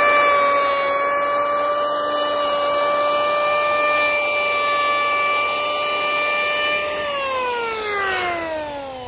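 DeWalt D26676 electric hand planer running with a steady high whine. About seven seconds in, it is switched off and its pitch falls as the motor and cutterhead spin down.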